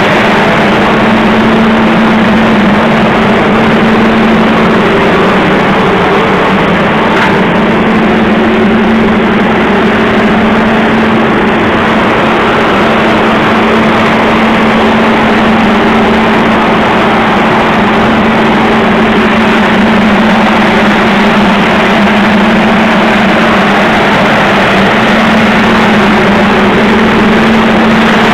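TECO corn dryer running, its large fans giving a loud, steady drone with a constant hum.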